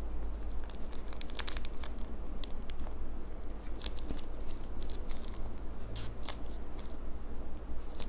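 Soft, irregular small crinkles and ticks of a cut seasoning sachet being squeezed out by hand over instant noodles, over a faint steady low hum.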